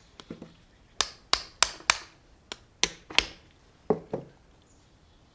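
Light hammer taps on a lawn tractor's metal starter solenoid, knocking at the housing to get the cover off after its rivets were driven out. About seven quick sharp taps come in the first three seconds, then two duller knocks.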